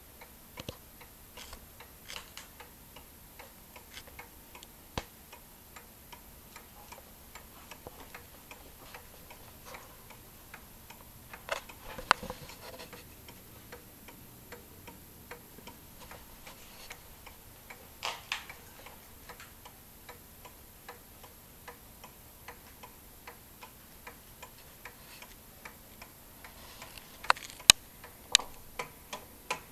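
Trumpeter clock's movement ticking steadily and softly, with a few louder clicks and knocks about twelve seconds in, about eighteen seconds in, and near the end.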